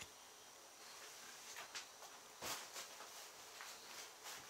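Faint rustling of a large sheet of paper being handled and laid out on a cloth-covered table, in a series of short soft rustles, the loudest about two and a half seconds in.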